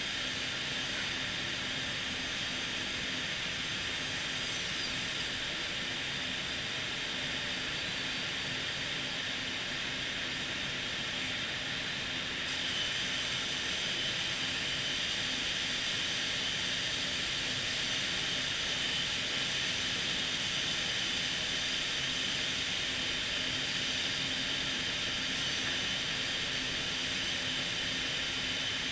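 HOMAG BAZ CNC processing center running: a steady high whir and hiss over a low hum. About twelve seconds in it gets a little louder and a high whine joins in.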